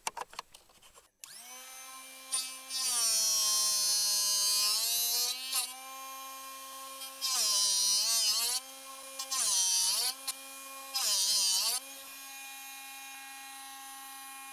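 Electric drill-bit sharpener running: its motor comes on about a second in and hums steadily, with four bursts of high grinding as the drill bit is sharpened against the wheel. The motor's pitch sags around each grinding pass.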